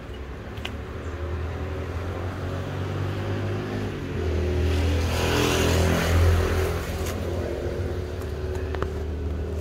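A motor vehicle's engine running with a low hum, growing louder between about four and seven seconds in, then easing back.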